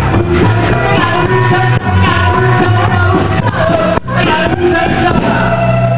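Rock and roll band playing, with singing over a steady, pulsing bass line. The sound dips briefly about four seconds in.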